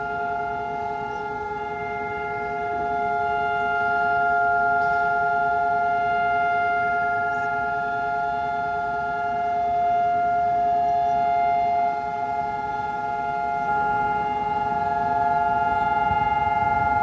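Israeli civil-defence sirens sounding the Holocaust Remembrance Day memorial siren: one long, steady tone that does not rise or fall, heard as several overlapping pitches. It is the two-minute siren of national remembrance.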